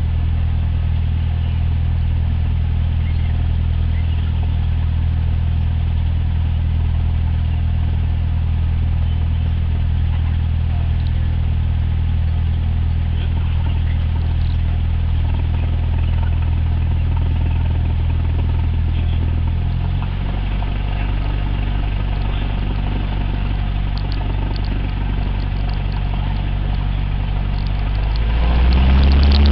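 Cessna 172's piston engine and propeller running at low taxi power, a steady low drone that drops slightly in pitch about two-thirds of the way through. Near the end the pitch and loudness climb quickly as the throttle is opened for takeoff.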